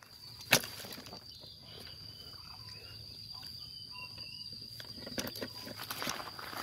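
Outdoor ambience with a steady high-pitched insect drone, a single sharp snap about half a second in, and a run of crackling footsteps or twig snaps near the end.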